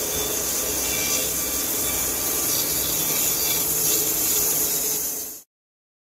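Rhino 800 portable band sawmill's blade cutting through a large log: a steady high-pitched hiss of sawing. It fades out abruptly and cuts to silence about five seconds in.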